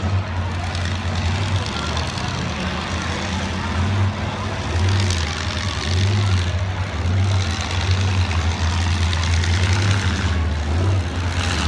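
Engines of several demolition derby cars running as they race around a dirt track: a steady low drone with a noisy wash over it.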